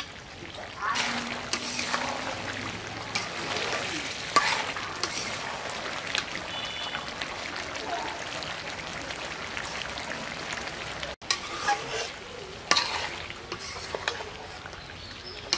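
A metal spatula scraping and stirring chicken curry around a two-handled metal wok, in irregular strokes over the curry's steady sizzle. The sound breaks off for an instant about eleven seconds in.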